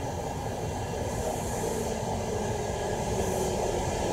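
Meitetsu limited express electric train pulling into a station platform: a steady rumble of wheels and motors that grows slowly louder as it approaches, with a brief hiss about a second in and another near the end.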